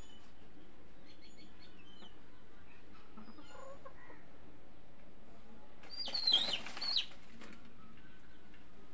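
Chickens in a yard: a few faint high chirps, then about six seconds in a short loud high-pitched squawk in two parts, about a second long.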